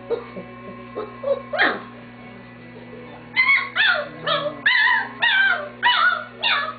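Three-week-old German Shepherd puppies whining and yelping. There is one high falling whine, then from about halfway a rapid string of short, high, wavering yelps.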